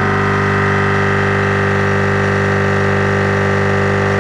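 A 12-volt Slime tire-inflator compressor running steadily, a constant hum with many steady tones, building pressure in the air cannon's tank.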